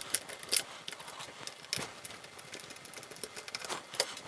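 Small clicks, taps and rattles of a car radio control unit's circuit boards and plastic housing being handled as its screen is freed, with a fast patter of faint ticks and a few sharper clicks.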